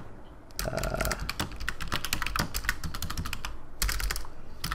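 Typing on a computer keyboard: a quick, dense run of key clicks starting about half a second in.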